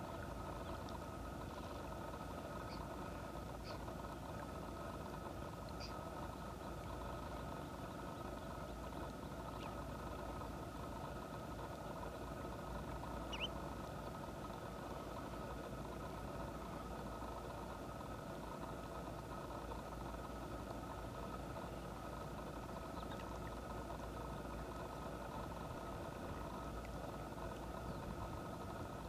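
A steady mechanical hum with a few faint, short high bird calls over it. The clearest call is a brief rising note about halfway through.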